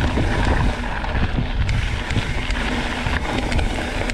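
Wind buffeting the microphone of a mountain biker's camera over the steady rumble of the bike's tyres rolling along a dirt trail, with faint scattered clicks and rattles from the bike.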